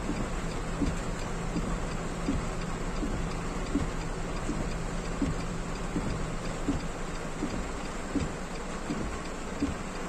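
Heavy rain falling on a car's roof and windshield, heard from inside the cabin, over a faint steady low hum. A soft tick repeats evenly about every three quarters of a second.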